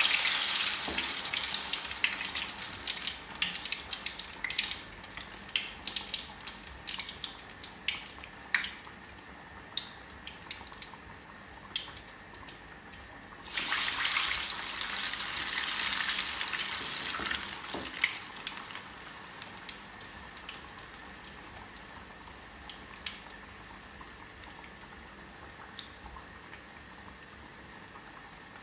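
Keerai vadai (urad dal and spinach batter) deep-frying in a kadai of hot oil. A loud sizzle right at the start and again about 13 seconds in, as each fresh vadai goes into the oil, with crackling and spitting that settle into a quieter steady bubbling sizzle.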